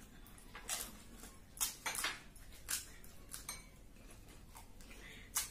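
Faint, scattered eating noises: about six short crunches and clicks as crisp golgappa (pani puri) shells are cracked open and eaten.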